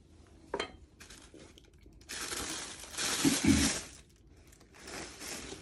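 Tissue paper crinkling and cloth rustling as the wrapping inside a shoe box is pulled back, loudest from about two to four seconds in. A light knock about half a second in.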